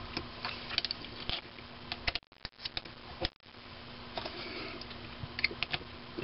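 Scattered small metallic clicks and taps as an aluminium workpiece is seated in a miniature metal lathe's three-jaw chuck and the chuck is tightened with its two chuck bars. A faint steady hum runs underneath.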